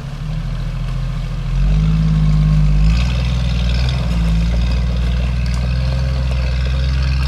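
Jeep engine running under throttle as it drives down a sand bank into shallow river water. The engine picks up about one and a half seconds in, then holds steady. From about three seconds in, water splashes around the tyres.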